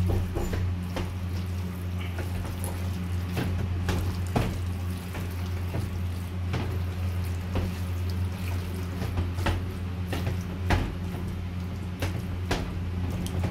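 Wet squelching and clicking of a bare hand kneading raw duck pieces with onion, spices and oil in a pan, in irregular strokes, over a steady low hum.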